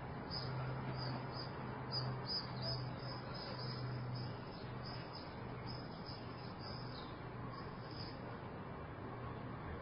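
Quiet room tone through an open balcony door: a soft background hush of city ambience with a low steady hum that fades in and out, and small birds outside chirping again and again.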